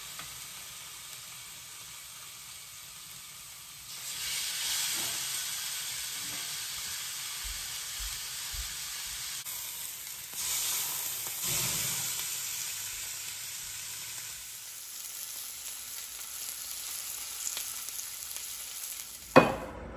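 Ribeye steaks sizzling as they sear on a hot cast iron grill pan. The sizzle swells about four seconds in, and again around ten to twelve seconds in as a steak is turned over with tongs. A single sharp click comes near the end.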